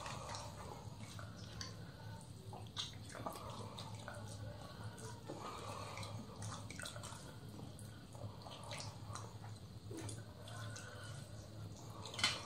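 Quiet, wet eating sounds from two people eating rice and mutton curry with their hands off a banana leaf: fingers squishing and mixing the rice, chewing and small lip smacks, heard as scattered soft clicks over a faint steady low hum. One sharper click comes near the end.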